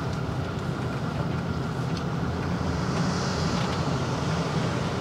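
A motorhome's engine running, heard from inside the cab as a steady, even hum with road noise.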